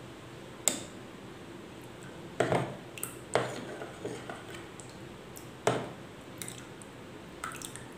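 Steel spoon stirring liquid in a plastic bowl, knocking against the bowl in about half a dozen separate light clicks.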